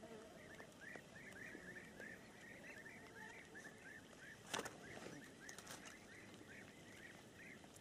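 Faint, continuous chattering of small birds, short chirping calls several a second, with one sharp click about four and a half seconds in.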